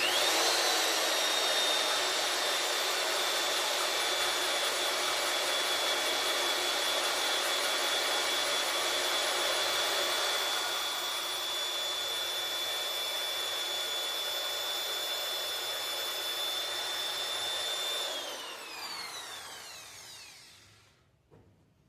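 Electric drill running at a steady speed, spinning an engine valve against its seat with lapping paste: a motor whine over a rough scraping hiss. About 18 seconds in the trigger is released and the drill winds down, its whine falling in pitch until it stops.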